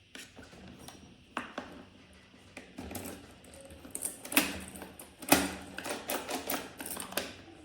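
A series of irregular sharp clicks and knocks, with two louder knocks a little past four and five seconds in, then a quick run of clicks.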